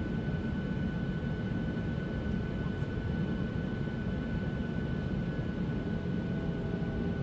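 Steady cabin noise inside an airliner in cruise flight: an even low rush of engine and airflow noise with a few faint steady tones riding over it.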